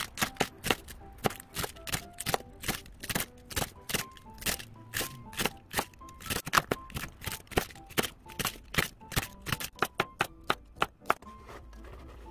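Chef's knife shredding cabbage on a plastic cutting board: a fast, even run of chops, about four a second, that stops a second or so before the end. Background music plays underneath.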